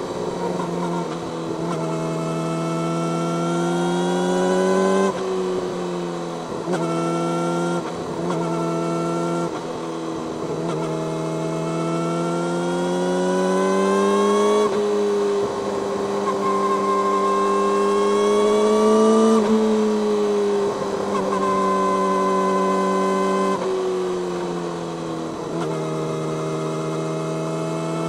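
Yamaha YZF-R6's 600 cc inline-four running through an Akrapovic megaphone slip-on exhaust under way. The engine note climbs in long pulls and drops abruptly in pitch about six times, then settles lower near the end.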